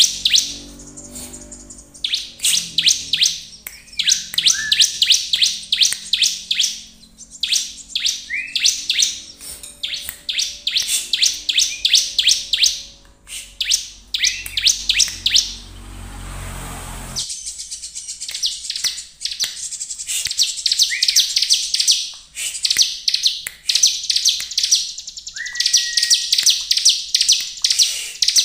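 Bar-winged prinia (ciblek) singing vigorously: rapid runs of sharp, high ticking notes in repeated bursts, with a short slurred whistle now and then.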